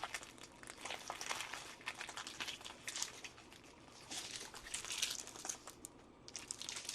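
Small plastic bags of diamond painting drills crinkling as they are handled and gathered up, a run of irregular crinkles with a short lull about six seconds in.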